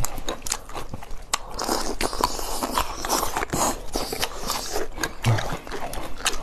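Close-up eating sounds: repeated crisp crunching bites and chewing.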